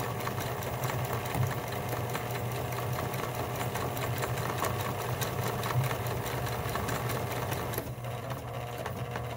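Kenmore Sensor Sew 70 electronic sewing machine running steadily, its needle clicking rapidly over a low motor hum as it stitches a memorized sequence of letters. The clicking gets lighter about eight seconds in.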